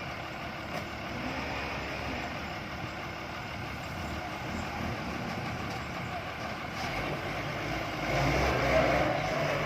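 Diesel engine of a John Deere 160 excavator running as it works, growing louder and deeper for a second or so near the end.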